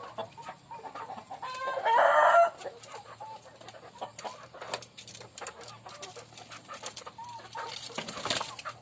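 Free-range village chickens clucking softly in a coop, with one loud rooster crow about two seconds in, lasting about a second. A brief rustling burst comes near the end.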